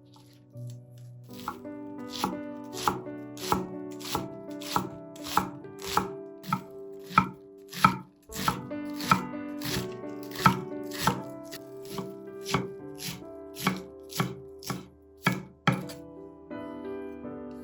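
A knife chopping food on a cutting board in steady, even strokes, about one and a half a second, stopping near the end. Soft background music plays underneath.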